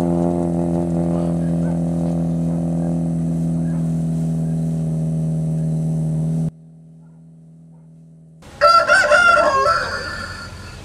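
A steady, held drone of film-score music that cuts off abruptly about six and a half seconds in, leaving only a faint hum. Near the end a rooster crows once, loud.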